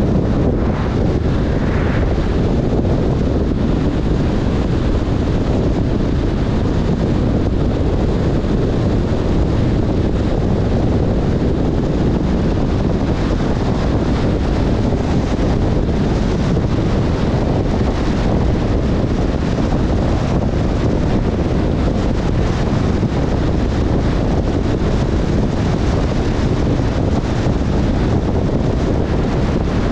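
Steady low rumble and hiss of a car driving on a rain-wet road, with wind buffeting the microphone.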